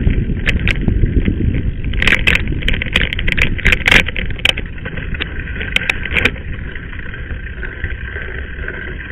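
Mountain bike riding over a gravel and dirt track: a steady low rumble of tyres on the surface, with sharp rattles and clicks from the bike jolting over bumps through the first six seconds or so, then a smoother, quieter run.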